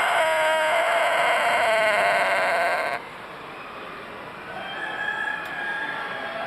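Tôtenkô rooster's long crow, a sustained pitched call with a wavering quality, cut off abruptly about three seconds in; fainter steady tones follow.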